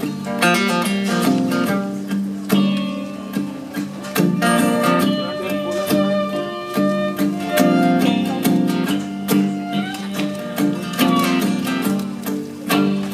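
Live band playing an instrumental passage, led by strummed acoustic guitar with other sustained instrument notes.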